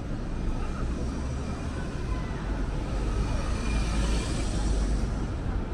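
Street traffic noise, with a car driving past close by: its tyre and engine noise swells about three to five seconds in.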